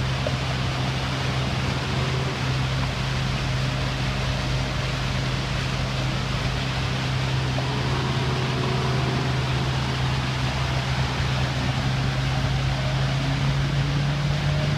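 Small outboard motor on an inflatable boat running under way at a steady, even pitch, over a steady hiss.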